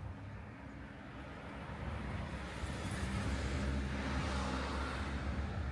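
A car passing on a road, its engine and tyre noise swelling to a peak about four seconds in and then easing off, over a low steady rumble.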